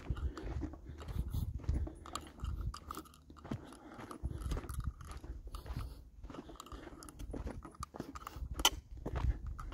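Footsteps crunching and scuffing on a dry dirt and gravel trail in an uneven walking rhythm, over a low rumble, with one sharp click near the end.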